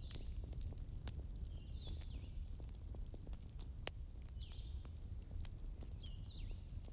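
Wood fire in a hearth crackling over a low steady rumble, with scattered small pops and one sharper pop about four seconds in. Faint high chirps come and go behind it.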